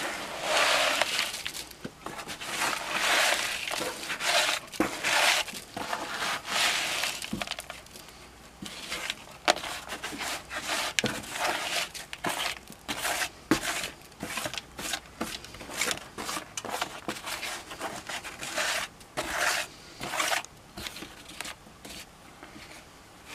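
Wet concrete mix being worked by hand in a plastic tub: gritty swishing scrapes, longer strokes for the first several seconds, then many short scrapes and clicks of the mix against the plastic.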